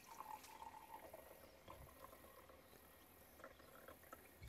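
Very faint pour of red wine from a glass bottle into an insulated stainless-steel tumbler, a soft liquid trickle most noticeable in the first second and a half.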